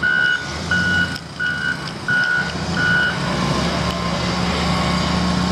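Reversing alarm on backing heavy equipment, five evenly spaced beeps that stop about three seconds in, over the steady running of a diesel engine.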